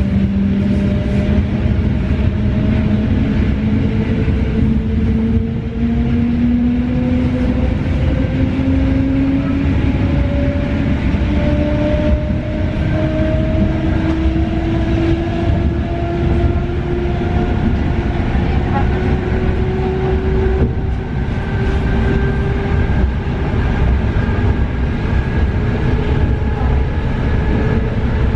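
EN71 electric multiple unit heard from inside the carriage, running and gathering speed: a whine that rises steadily in pitch throughout, over a constant low rumble of the wheels on the track.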